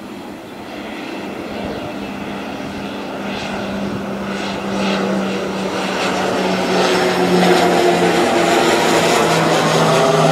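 Let L-410 Turbolet twin-turboprop flying low overhead: a steady propeller drone that grows steadily louder as it approaches, its pitch dropping about eight seconds in as it passes over.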